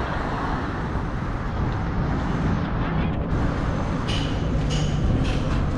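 Steady rumble of street traffic and motor vehicles on a town street, with a few short clatters about two-thirds of the way through.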